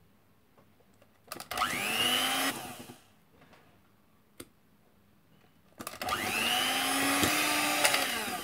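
Electric hand mixer beating butter, sugar and egg in a glass bowl, in two runs of a few seconds each: the motor whine rises as it spins up and falls as it stops, with near silence between the runs.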